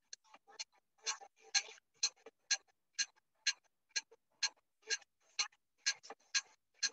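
Short scratchy strokes in an even rhythm, about two a second.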